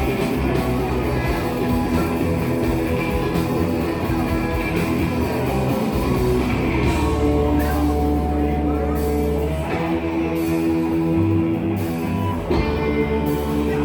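Live heavy rock band playing, electric guitars to the fore over bass and drums, with heavy held low notes through the middle.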